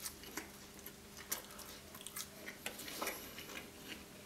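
Faint close-miked chewing of thin-crust Nutella dessert pizza topped with charred marshmallow, with scattered small clicks and crunches.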